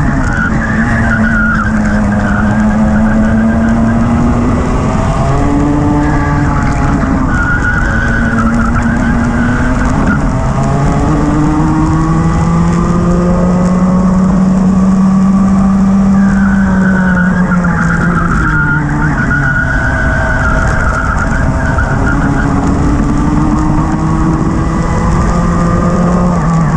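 Rotax two-stroke racing kart engine heard onboard at racing speed, its pitch climbing as it accelerates out of each corner and dropping as it brakes for the next, several times over.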